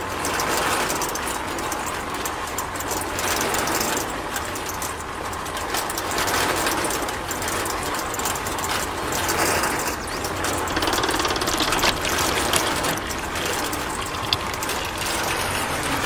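Miniature model concrete mixer's small electric motor and drive gears running steadily as the drum turns, a fast rattling whir with a few sharper clicks in the second half.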